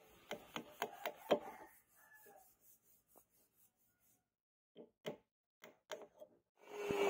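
A thin steel rod scraping and knocking inside the tang hole of a wooden knife handle, clearing out wood, in quick strokes of about four a second for the first two seconds, then a few lighter scrapes and clicks. A power tool starts running right at the end.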